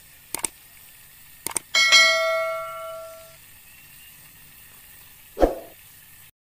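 Subscribe-button sound effects: two quick pairs of mouse clicks about a second apart, then a bright bell ding that rings out and fades over about a second and a half. A whoosh follows near the end.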